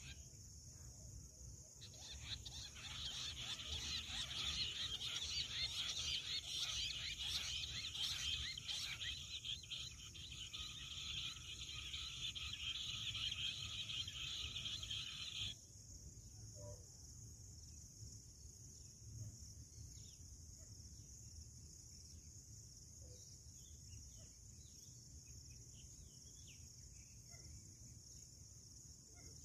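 Jungle bush quail call played back, most likely from the small speaker on the mound: a dense chorus of chattering, trilling notes that starts abruptly about two seconds in and cuts off sharply about halfway through. A steady high insect drone runs underneath, and a few faint bird chirps follow in the second half.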